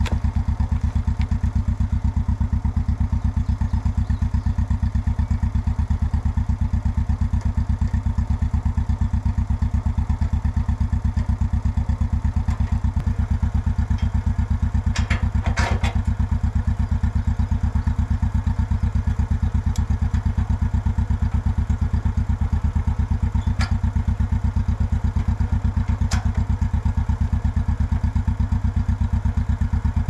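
Engine of a John Deere Gator utility vehicle running steadily with an even low throb, while it pulls the sawmill trailer. A few light clicks and a short rattle sound about halfway through and again later.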